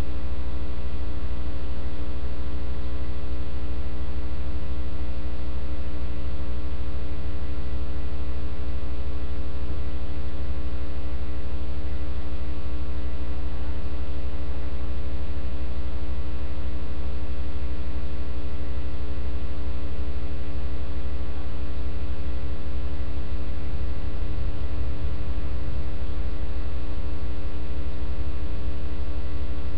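Loud, steady electrical mains hum with a buzzy stack of overtones, unchanging; no other sound stands out.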